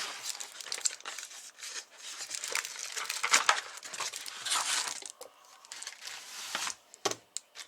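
Packaging crinkling and rustling in irregular bursts as small 3D-printed meter stands are unwrapped and handled, with a couple of sharp clicks near the end.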